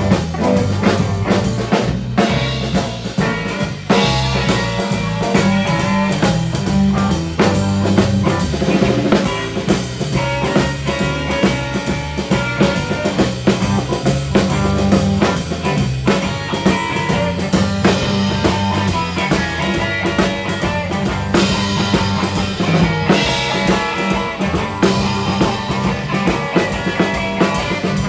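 Live band music: electric guitar played over a drum kit, continuous throughout.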